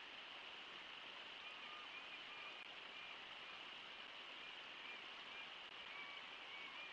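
Faint, steady rush of the river's fast-flowing water, with a few short, faint high chirps scattered through the middle and later part.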